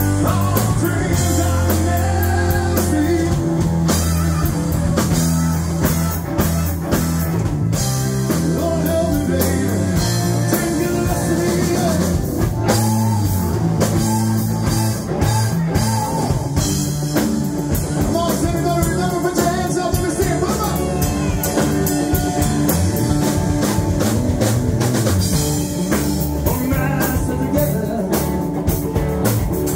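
Live rock band playing: a man singing over electric guitars, bass guitar and a drum kit, loud and steady throughout.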